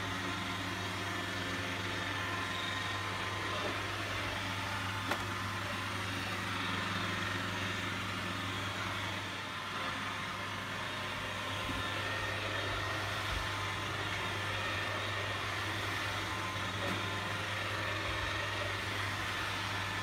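iRobot Roomba 871 robot vacuum running steadily as it cleans a flat-woven rug, its suction motor and brushes making a constant hum.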